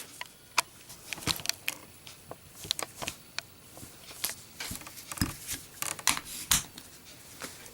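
Scattered light clicks and taps from small hard objects being handled, irregularly spaced, about a dozen over several seconds.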